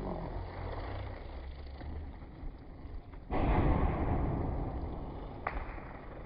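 Firecrackers going off: a sudden noisy blast about three seconds in that fades away over a couple of seconds, then a sharp pop shortly before the end, over a steady low rumble.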